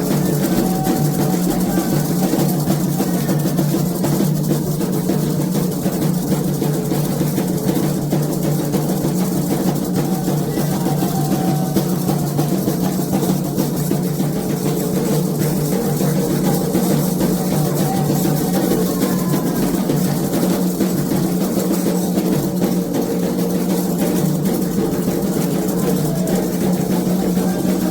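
Candomblé ceremonial drumming on atabaque hand drums: a dense, fast rhythm that keeps going at an even level without a break.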